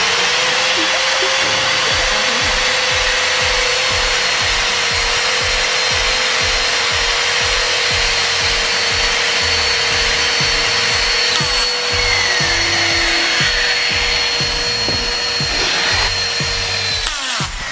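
Power drill driving a self-drilling screw through 6 mm steel plate: the motor spins up and runs with a steady whine while the drill point cuts the steel, stopping near the end.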